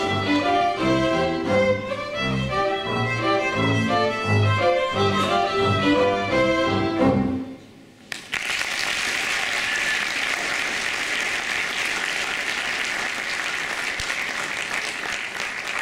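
A small string ensemble of violins and a double bass plays the closing bars of a piece, ending about seven seconds in. After a short pause the audience applauds steadily.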